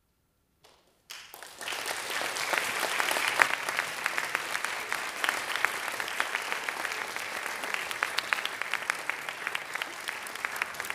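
Brief silence, then an audience starts applauding about a second in, rising quickly to full applause and carrying on steadily.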